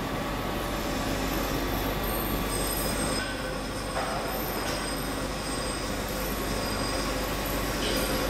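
Large CNC gear-grinding machine running: a steady machining noise with a low hum and several thin, high-pitched whining tones over it.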